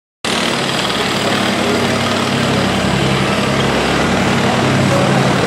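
A steady engine drone cutting in abruptly a moment in, heard outdoors over a crowd's background noise.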